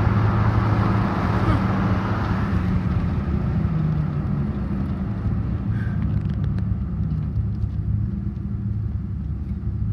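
Steady low drone of a car's engine and tyres heard from inside the cabin while driving on a wet road, with a hiss that fades somewhat over the first few seconds.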